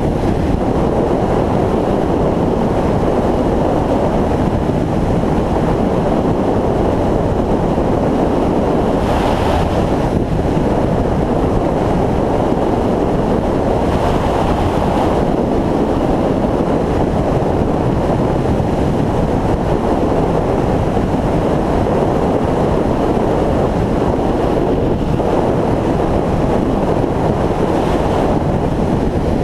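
Steady wind buffeting the microphone of a camera on a moving motorcycle at road speed, with the bike's running and road noise mixed underneath.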